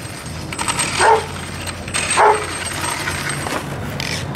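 A dog barking twice, about a second apart, each bark short and dropping in pitch.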